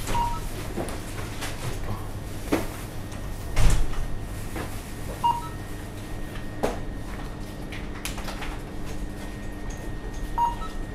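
Supermarket checkout sounds: scattered knocks and clatter of goods and fittings being handled at the counter, with one louder thump about four seconds in. Three short beeps, from the till's barcode scanner, come at the start, a little after five seconds and near the end, over a steady hum.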